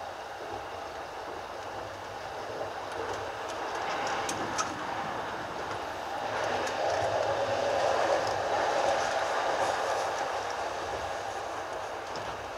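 JR East commuter electric train (E233-3000 and E231-1000 series coupled) running along the track, a steady rolling noise heard from the front of the train. It swells about halfway through and then eases off again, with a few faint clicks a little before the swell.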